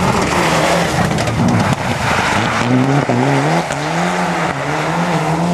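Mitsubishi Lancer Evolution rally car's turbocharged four-cylinder engine revving up and down repeatedly as the car slides sideways on snow and slush, with a steady rush of tyre and spray noise underneath.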